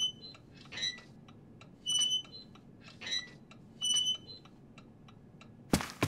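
Clock ticking, given as a ringing tick-tock that alternates a higher and a lower tone about once a second, with faint quicker ticks between. Near the end come a few sharp knocks.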